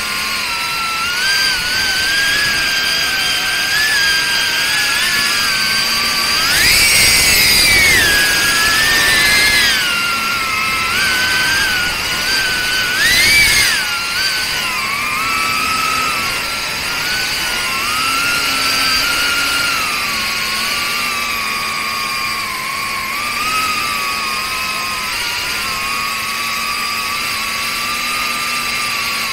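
Small ducted FPV cinewhoop drone's 3800 KV brushless motors whining, heard through the onboard camera. The pitch wanders with the throttle and climbs sharply in two throttle punches, about six to eight seconds in and again about thirteen seconds in.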